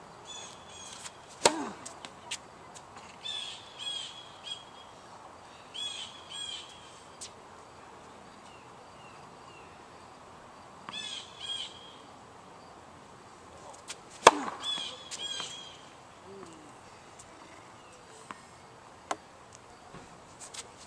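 Tennis balls struck on the serve by a ProKennex Black Ace racket: two sharp hits about a second and a half in and about fourteen seconds in, and a third at the very end, with a few fainter ticks between. A bird calls in clusters of short, repeated high notes through the gaps.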